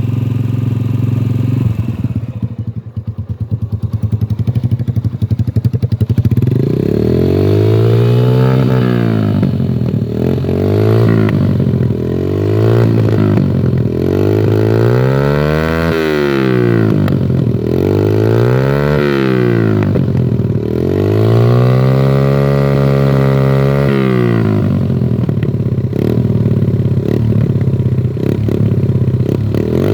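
Yamaha YBR 125's single-cylinder four-stroke engine through an Akrapovic exhaust with its dB killer removed, idling and then revved up and let fall again about eight times in a row. The choke is pulled fully out, which the rider uses to make the exhaust backfire.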